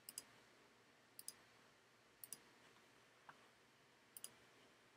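Faint double-clicks of a computer's mouse or trackpad button, five short clicks or pairs of clicks about a second apart.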